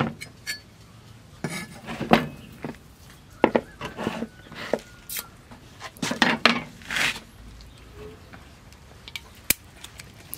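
Kitchenware being handled on a wooden chopping block: irregular clinks and knocks of plates, a bowl and utensils, with a few short scrapes.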